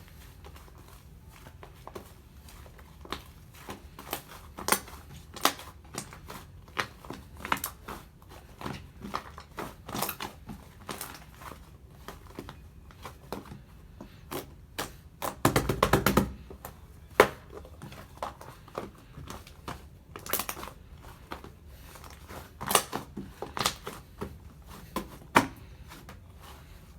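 White fluffy clay slime being squeezed and poked by hand, giving irregular soft clicks and pops. A denser, louder stretch of crackling comes about halfway through.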